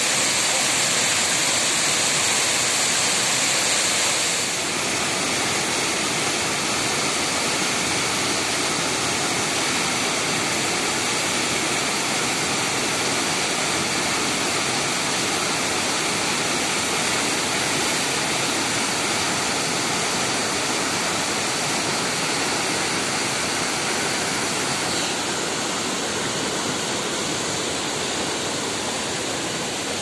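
Waterfall in spate after days of rain, with muddy floodwater pouring over rocks in a steady, loud rush. The rush drops slightly and turns duller about four seconds in.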